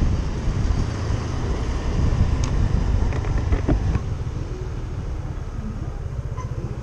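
Motor vehicle on the road, engine running with a strong rumbling wash of road and wind noise; about four seconds in the noise eases off and a steadier engine note is left, as the vehicle slows on arrival.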